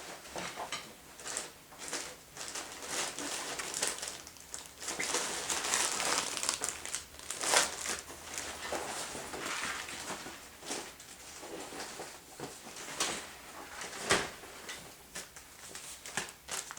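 Hands handling laptop screen parts at close range: crinkling and rustling with many scattered clicks and taps, busiest in the middle and thinning out towards the end.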